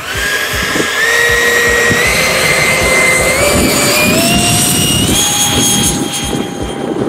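Electric ducted fan of a 12S-powered fibreglass RC jet spooling up to full power for its takeoff run: a loud, high whine that climbs in pitch in several steps over about five seconds, then holds steady near the end.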